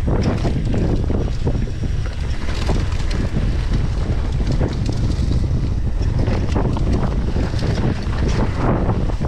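Heavy wind buffeting on the camera microphone of a mountain bike riding fast down a trail, with frequent rattles and knocks from the bike over rough ground.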